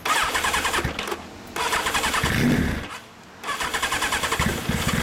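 A 2000 Yamaha XJR1300 air-cooled inline-four, fitted with an OVER Racing muffler, being started. The starter cranks, stops, cranks again, and the engine catches and runs near the end.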